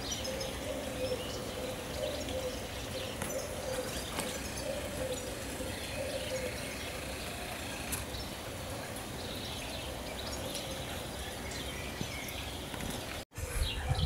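Outdoor garden ambience: scattered bird chirps and calls over a faint, wavering low hum. The sound drops out for a moment near the end.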